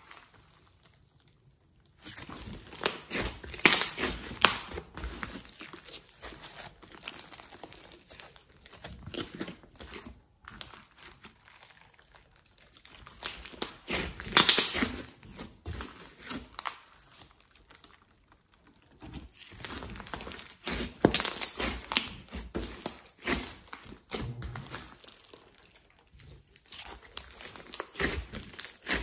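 Hands kneading and pressing a thick lump of glossy slime mixed with clay, the slime crackling with irregular clusters of small clicks and pops. The crackling starts about two seconds in and comes in bursts with quieter gaps between them.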